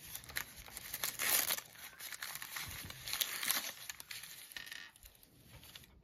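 Packaging crinkling and rustling in irregular bursts as items are dug out of a shipping box. It is busiest in the first few seconds and dies down near the end.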